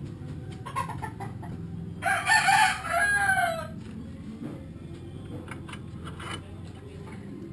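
A rooster crowing once, about two seconds in, a call of under two seconds that falls in pitch at its end. Light metal clicks and taps come from parts of the scooter's CVT being handled and fitted.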